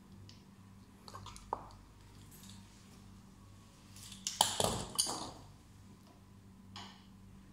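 A few light clinks and clicks of small hard parts and a hand tool being handled at a laser machine's filter housing, with a louder cluster of clinks just past the middle. A faint steady low hum runs underneath.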